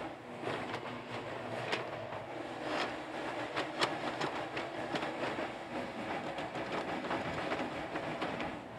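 Yanmar YB451 mini excavator running while it digs with its bucket, the engine running steadily with repeated metallic clanks and knocks from the bucket and arm, a sharper clank about four seconds in.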